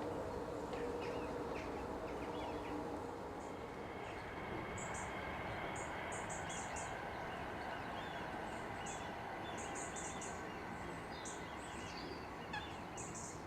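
Small birds calling outdoors: short chirps in the first few seconds, then thin, very high notes in quick little clusters, over a steady background hum.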